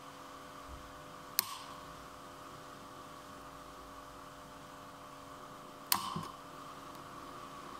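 Two sharp metal clinks, about four and a half seconds apart, the second louder with a brief ring, as the gears and shafts of a Peugeot-Citroën manual gearbox are handled in their housing, over a steady hiss and hum.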